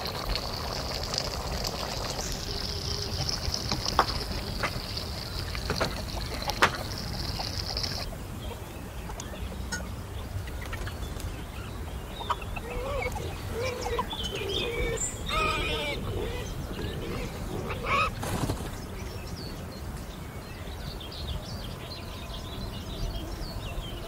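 Outdoor ambience with birds calling: a steady high-pitched trill for the first eight seconds that cuts off suddenly, then scattered wavering calls. A few sharp knocks are heard along the way.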